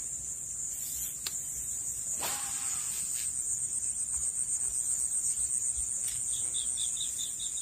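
Insects chirring in a steady, high-pitched trill with a fast pulsing beat. A few faint clicks come in the first few seconds, and a quick run of short, evenly spaced high notes comes near the end.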